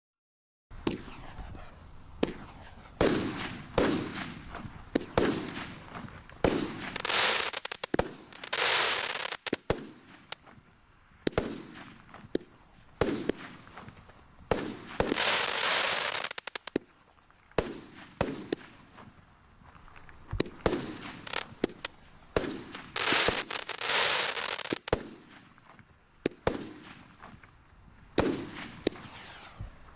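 A 25-shot firework cake firing shot after shot, starting about a second in: sharp launch thumps and shell bursts, several followed by about a second of hiss.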